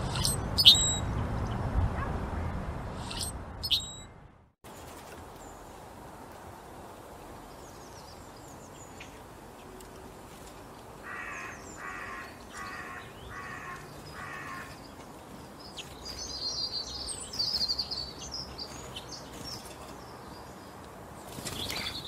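A Brewer's blackbird gives sharp, squeaky high calls, two near the start and two more about three seconds in. After a cut, a European starling sings: five evenly spaced rasping notes, then a high chattering warble.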